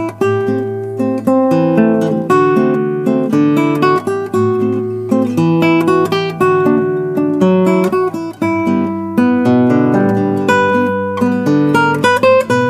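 Acoustic guitar music with quick plucked and strummed notes.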